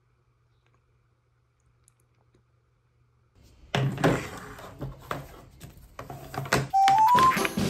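Near silence for about three seconds, then picture frames handled and set down on a wooden table: several sharp knocks and rustles. Near the end, a short rising run of four notes, and music begins.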